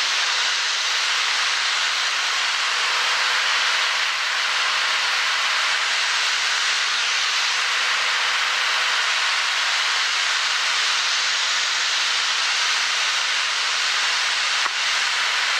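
Steady cabin noise of a Cessna 182Q in cruise flight: the six-cylinder engine and propeller running evenly under a loud, constant hiss of airflow, with faint steady engine tones beneath.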